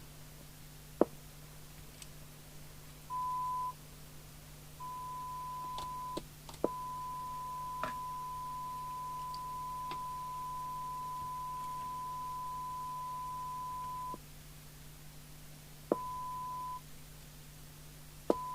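Steady test tone from a Cybernet Beta 2000 FM CB radio's loudspeaker, cutting in and out five times as the squelch opens and closes on the signal generator's signal. The longest stretch lasts about seven seconds, and sharp switch clicks come about a second in and as the tone starts and stops. A low mains hum runs underneath.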